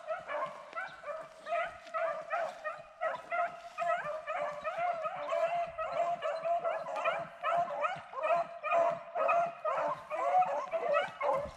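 A pack of rabbit-hunting hounds baying, with many short, overlapping calls in a steady run.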